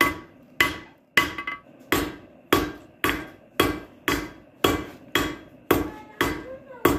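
Blacksmith's hammer striking hot steel bar stock on an anvil in a steady rhythm, about two blows a second, each with a short metallic ring: drawing out the bar and bringing it to round.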